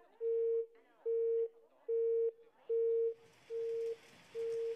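Telephone busy signal: one steady tone beeping on and off evenly, about six beeps, with faint crackle on the line between them. About three seconds in, a steady hiss comes in under it and the beeps go on a little quieter.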